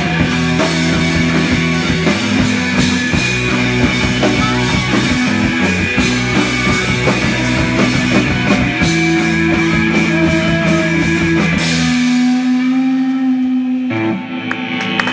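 A live rock band plays loudly on electric guitar, bass guitar and drum kit. About twelve seconds in the drums and cymbals stop, and held guitar and bass notes ring on.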